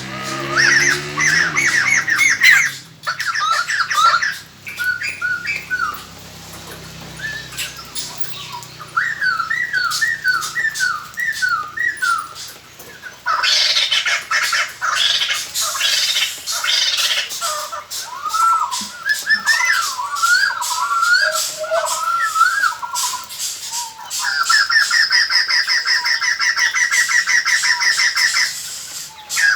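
White-crested laughingthrush calling: a string of loud chattering, cackling phrases with short gaps. Near the end comes a fast rattle of rapidly repeated notes lasting about four seconds.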